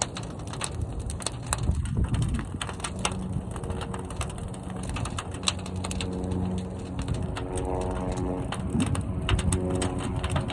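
Fire burning in a large kiln: rapid crackling and popping over a low rumble. A few seconds in, a steady low hum with overtones joins and holds.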